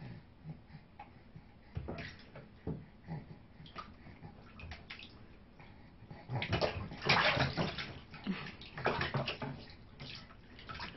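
Water splashing and sloshing in a plastic baby bathtub as a baby kicks her legs: a few light splashes at first, then a stretch of louder, quick, continuous splashing from about six seconds in.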